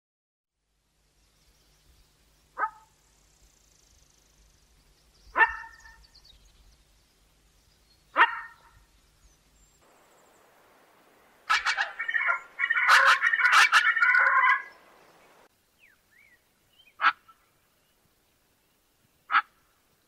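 White eared pheasant calling: short single calls every few seconds, then a loud run of rapid, overlapping calls lasting about three seconds in the middle, followed by two more single calls.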